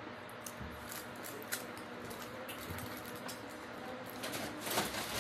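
Close-up eating sounds: a fork picking and scraping at seafood on a foil-lined plate, with foil crinkling and chewing. The clicking and crinkling grow denser near the end.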